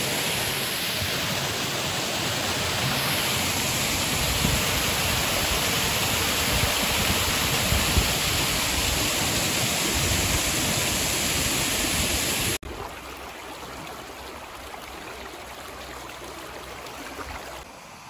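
Creek water rushing steadily down a stone-faced spillway into the stream, a loud, even rush. About two-thirds of the way through it cuts off suddenly to a much quieter, softer flow of water.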